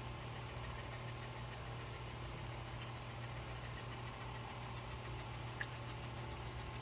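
Steady low mechanical hum, with a faint click about five and a half seconds in.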